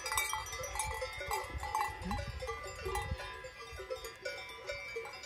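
Cowbells on the collars of grazing calves clanking and ringing irregularly, several bells of different pitches overlapping, over a low rumble.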